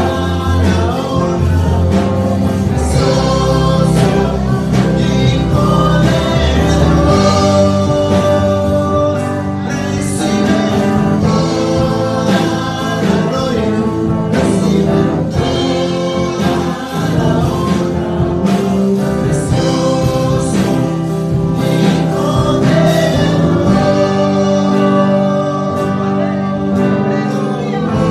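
A Christian worship song sung live by a girl and a man into microphones, with instrumental backing.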